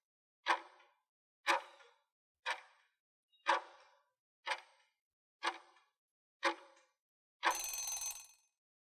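Countdown timer sound effect ticking like a clock, once a second, seven ticks. About seven and a half seconds in, a longer, denser sound lasting just under a second marks the end of the count.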